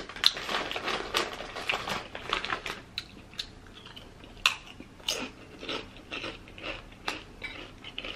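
Close-up crunching and chewing of potato chips: rapid sharp crunches for the first few seconds, then slower, scattered crunches.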